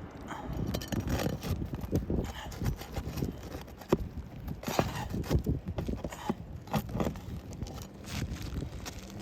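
Irregular knocks, taps and scrapes of asphalt shingles being handled and worked loose on a roof, with a low rumble of wind on the microphone.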